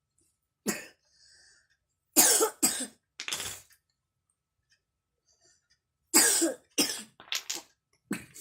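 A young child with a cold coughing in fits: one cough, then a run of three, a pause of a couple of seconds, then a longer fit of four or five coughs and one more near the end.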